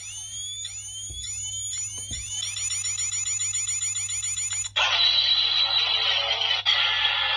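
Electronic sound effects from a Kamen Rider Faiz replica toy: a run of rising electronic chirps that come faster and faster, then about five seconds in an abrupt loud hissing electronic blast, like a charged finishing-attack effect.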